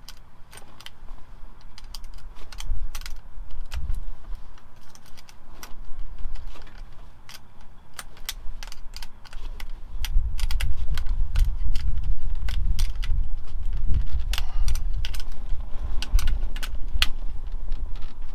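Screwdriver and small metal parts clicking and tapping against a truck's dashboard switch panel, in many irregular sharp clicks. From about ten seconds in, a low rumble lies underneath and is the loudest part.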